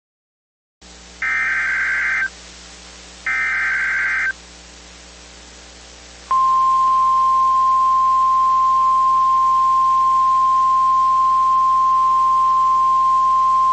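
NOAA Weather Radio emergency alert: two roughly one-second bursts of the SAME digital header, then, about six seconds in, the steady single-pitched 1050 Hz warning alarm tone begins and holds, over faint radio hiss. It is the alert signal that comes before a severe thunderstorm warning.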